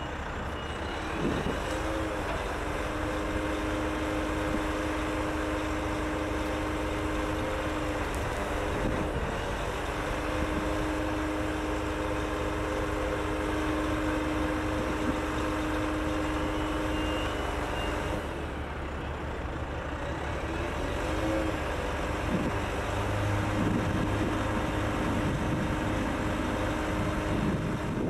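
Truck engine running steadily to drive the hydraulic cranes of a Hammar 195 HB truck-mounted sideloader as it lowers a 20 ft container onto its deck, a steady droning hum. The hum breaks briefly about a third of the way in and fades for a few seconds past the middle before picking up again.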